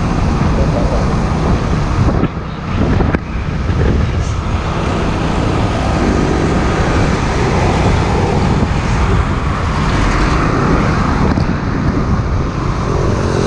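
Road traffic noise, a steady low rumble of engines and tyres, with wind buffeting the microphone.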